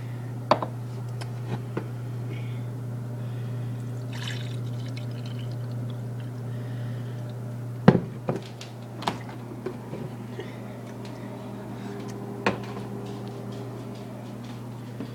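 A drink of Kool-Aid being poured into a cup, with several sharp clinks and knocks of the container and cup, the loudest about eight seconds in. A steady low hum runs underneath.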